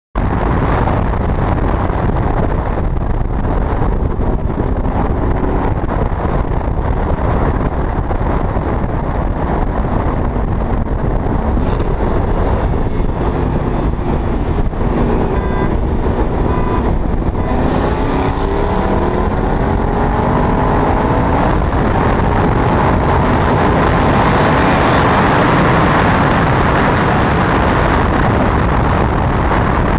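Twin-turbo 2011 Ford Mustang GT's 5.0 Coyote V8 pulling hard at wide-open throttle, buried in a dense rush of wind and road noise on a camera mounted outside the car. From about halfway through, the engine note climbs steadily in pitch as it winds up.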